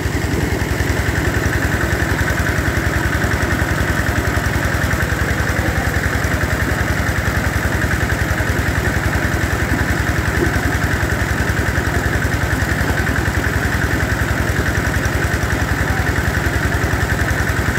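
Engine-driven water pump running steadily with an even, fast beat, pumping water out of a pond.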